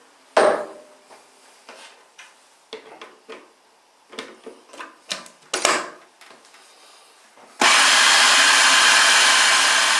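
Food processor motor starting about three-quarters of the way in and running steadily, chopping minced pork belly and ham into a spread. Before it, a few knocks and clicks as the plastic lid is fitted onto the bowl.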